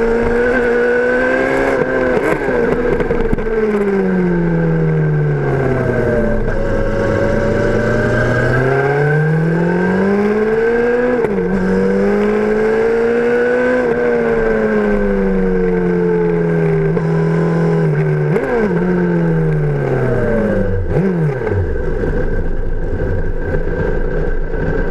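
Motorcycle engine under way, its revs rising and falling in long sweeps with a few sudden steps as the gears change. About 21 seconds in the revs fall away steeply as the bike slows and comes to a stop, and the engine settles to a steady idle near the end.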